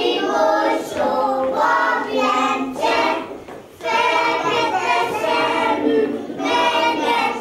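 A group of young children singing a ring-dance song together, with women's voices among them, with a short break between phrases about three and a half seconds in.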